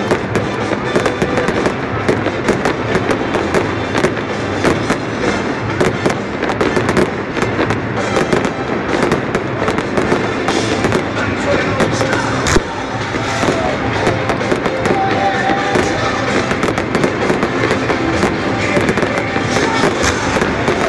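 Aerial fireworks show: a dense, unbroken run of bangs and crackling pops, many a second, with one sharper bang about twelve seconds in.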